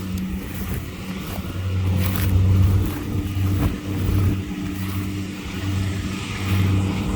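Kubota combine harvester's diesel engine running with a steady low hum, swelling louder about two seconds in and again near the end.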